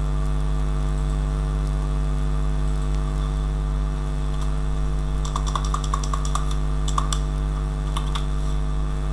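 A steady low electrical hum, with a quick run of computer keyboard keystrokes starting about halfway through and lasting about three seconds.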